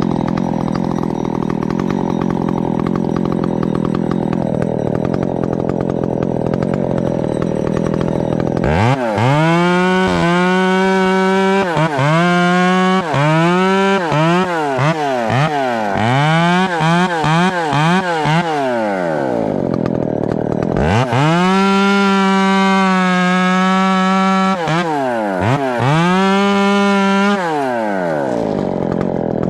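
Ported 372XP-pattern chainsaw with a 50 mm big-bore cylinder, running pretty good. It runs steadily at first, then from about nine seconds in it is revved over and over, its pitch climbing, holding high for a few seconds at a time and dropping back.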